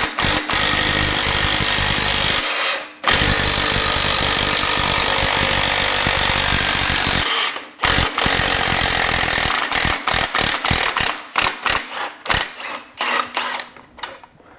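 Cordless impact wrench hammering, driving an internal coil-spring compressor inside a car's front coil spring. Two long runs of hammering are followed, from about eight seconds in, by a string of short bursts.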